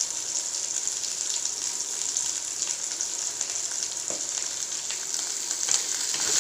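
Chopped onion and curry leaves sizzling steadily in hot coconut oil in a kadai as they are sautéed, with faint ticks and scrapes of stirring. The sizzle swells a little near the end.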